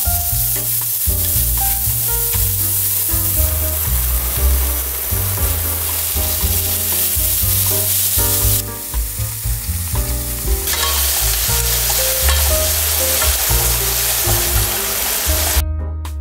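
Minced garlic and lemongrass sizzling in hot oil in a pan while being stirred with wooden chopsticks, then baby basket clams frying with them. The loud sizzle drops away for about two seconds near the middle and cuts off shortly before the end, with light piano background music playing throughout.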